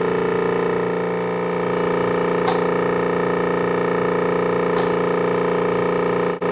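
Bailey MSV25 vacuum pugmill running: its motor and drive give a steady hum of several fixed tones, with two light clicks about two and a half and five seconds in.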